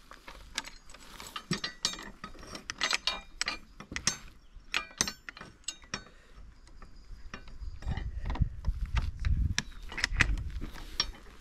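Irregular metallic clicking and clinking with a short ring after each click, a small mechanism being worked, then footsteps thudding near the end.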